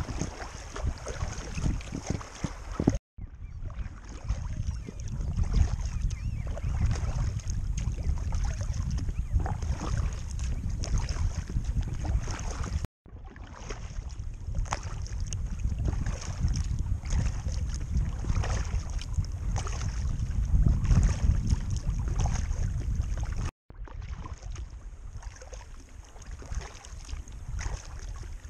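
Wind rumbling on the microphone of a bow-mounted camera on an inflatable Intex Challenger K1 kayak under way at sea, with water washing and lapping against the hull. The sound cuts out briefly three times.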